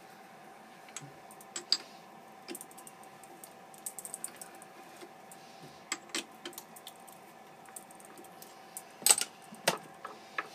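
Scattered metallic clicks and clinks as the jaws of a lathe's four-jaw chuck are loosened by hand and the workpiece is taken out, with two louder knocks near the end, over a faint steady hum.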